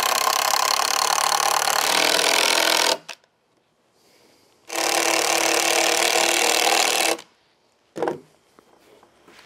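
Cordless drill driving screws into pine lumber in two runs of about two and a half seconds each, with a short pause between. A single short knock follows near the end.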